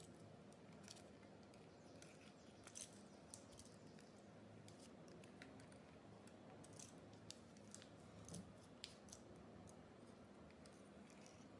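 Faint, irregular clicks and light scraping of a fluted pastry wheel rolling through thin cracker dough on parchment paper, over a low steady hum.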